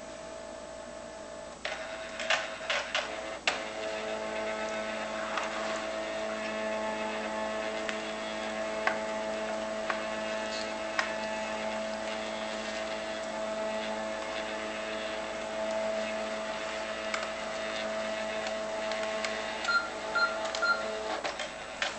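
Panasonic fax machine making a copy: clicks and clatter as the mechanism starts about two seconds in, then a steady motor whine as the page feeds through and prints. Three short beeps and a few clicks come near the end as the copy finishes.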